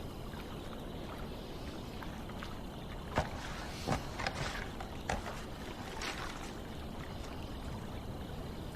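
Soft paper rustles and a few light clicks as the pages of a contract are handled and leafed through, mostly between about three and six seconds in, over a steady faint hiss.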